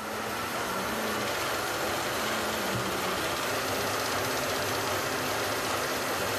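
Textile warping machine running: a steady, dense mechanical noise with a faint low hum that comes up just at the start and then holds even.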